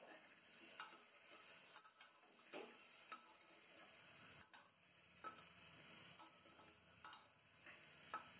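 Faint, irregular scrapes and taps of a metal spatula against the side of an aluminium pressure cooker as chicken and vegetables are stirred while frying, about one every second.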